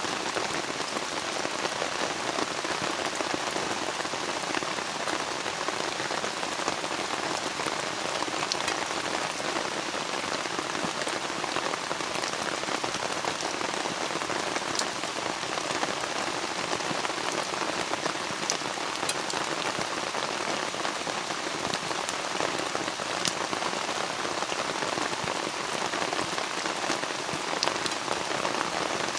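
Steady rain falling, an even dense hiss with scattered sharp ticks of single drops.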